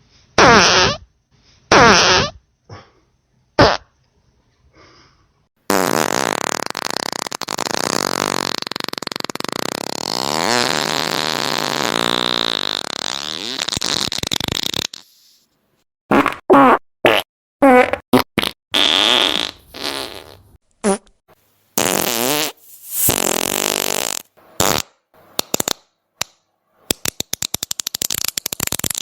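A run of fart sounds. First come a few short farts, then one long drawn-out fart lasting about nine seconds, then a string of short farts. The run ends in a rapid sputtering series of many quick pulses.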